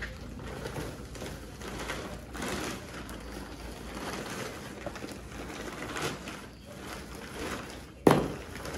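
Hands rustling and crinkling a woven plastic rice sack and dry, rotted cloth while sifting through soil, in uneven bursts. A sudden loud knock near the end is the loudest sound.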